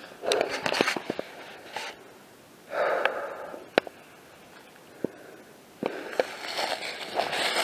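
A walker's heavy breathing, with two loud puffed breaths, mixed with footsteps in dry leaf litter and sharp snaps of twigs underfoot. The crunching and rustling get busier near the end.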